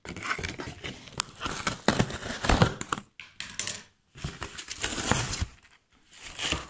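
A blade slicing through packing tape and cardboard on a shipping box, with irregular scraping, tearing and clicks. The cardboard flaps are then pulled open with rustling, after a short break in the middle.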